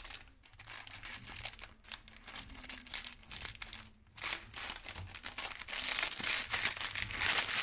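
Crinkling and rustling of a foil-lined plastic snack packet being handled, cut open with scissors and pulled apart, in irregular bursts that grow louder near the end.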